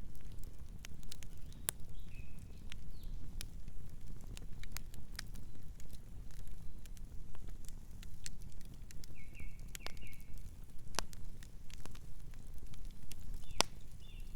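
Campfire burning: a steady low rumble of flames with scattered sharp crackles and pops from the burning wood. A few short high chirps come through about two seconds in, near ten seconds and near the end.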